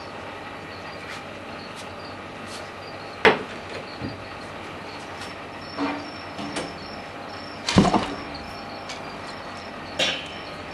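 Several sharp knocks and thumps against a steady background hum in a turtle tank, the loudest about eight seconds in, as a common snapping turtle lunges at and catches a fish.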